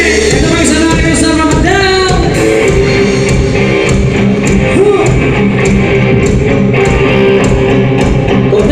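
Live rock band playing: guitar and drums with a steady beat, and a sung line in the first couple of seconds before the music carries on without vocals.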